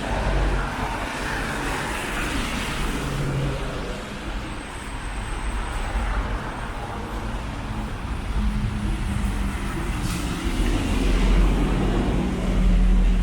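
Road traffic: motor vehicles running past on the street, with a low engine hum that grows louder in the last few seconds.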